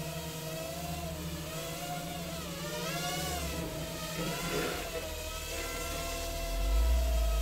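Blade Nano QX micro quadcopter's motors and propellers whining in flight, the pitch wavering up and down as the throttle changes. A low rumble swells near the end.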